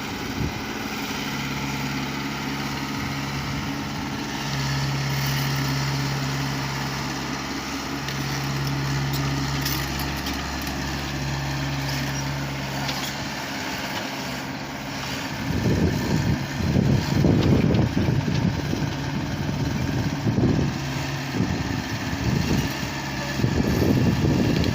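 Heavy earthmoving machine's diesel engine running with a steady hum, then going into a louder, uneven rumble about fifteen seconds in.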